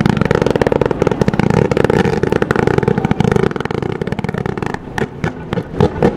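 Tube fireworks firing from the ground: a continuous rushing crackle of rapid reports for about five seconds, then a string of separate loud pops near the end.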